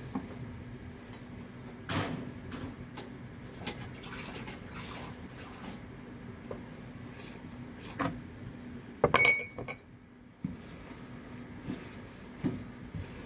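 Kitchen handling sounds of bread dough being mixed: a wooden spatula scraping and knocking in a large plastic mixing bowl, with scattered clicks and taps over a steady low hum. About nine seconds in comes the loudest sound, a sharp clatter with a ringing clink, like a glass measuring cup being set down.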